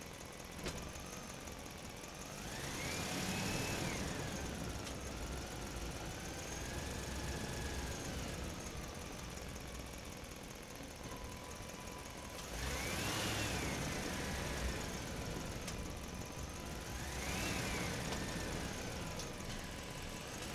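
Heavy trucks driving past on a road: engine and tyre noise swells three times as trucks go by, and each time the engine pitch climbs, holds and then drops.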